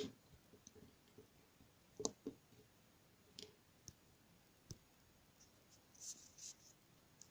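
Faint, scattered clicks of buttons being pressed on a Sony Ericsson J300 mobile phone's keypad, about one every second or so, with a few closer together near the end.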